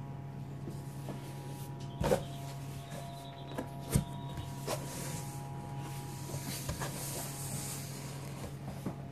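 Cardboard box and packaging being opened and handled: scattered scrapes, clicks and knocks, the loudest two about two and four seconds in, over a steady low hum.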